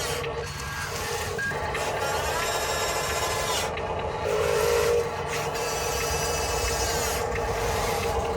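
Electric motors and gearboxes of RC construction trucks whining, the pitch sliding up and down as the throttle changes, with a steady hum and some scraping underneath.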